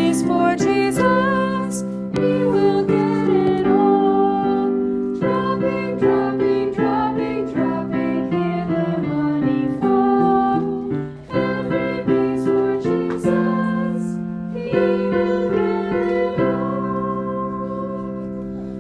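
Keyboard music playing a gentle children's song tune with chords, getting quieter over the last few seconds.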